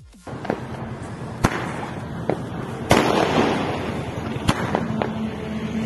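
Fireworks going off: a continuous crackling hiss of burning sparks, with sharp firecracker bangs about one and a half, three and four and a half seconds in, the one about three seconds in the loudest, and several smaller pops between.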